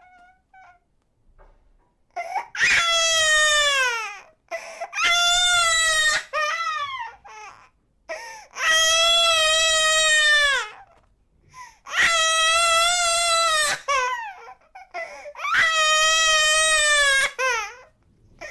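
Infant crying: five long, high-pitched wails of about two seconds each, broken by short catching breaths and whimpers, starting about two seconds in.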